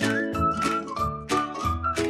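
Upbeat intro theme music: a whistled melody over a bass line and a steady beat.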